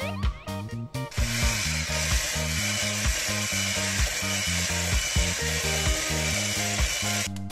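Electric hand mixer with twin wire beaters running in a glass bowl, beating butter and sugar. It starts about a second in and stops just before the end.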